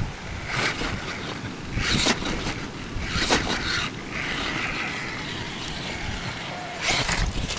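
Axial Wraith RC crawler's 3S brushless motor and drivetrain whirring on and off as it climbs a rock wall, with several sharp knocks along the way.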